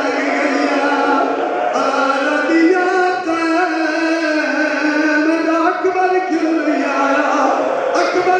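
A man's voice chanting a melodic religious recitation into a microphone, with long held notes that slide in pitch, sung without instruments.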